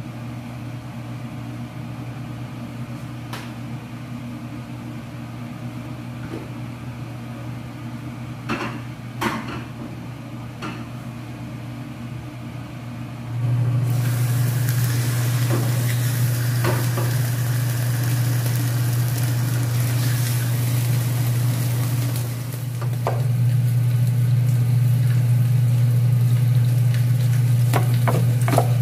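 Fish fillets sizzling in hot oil in a frying pan, starting about halfway through as they go in and running steadily after that, over a steady low hum. Before the sizzle there are a few light knocks of kitchenware.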